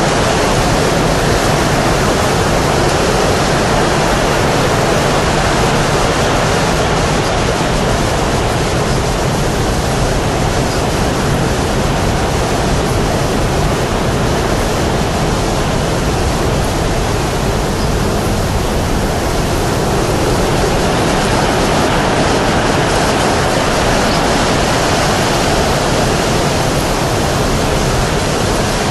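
Steady, loud rushing noise of blowing air, with no pitch and only slight swells and dips in strength.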